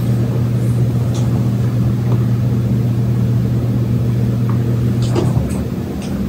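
A steady low hum with a few even tones, whose lowest tone drops away about five seconds in, with a few faint ticks.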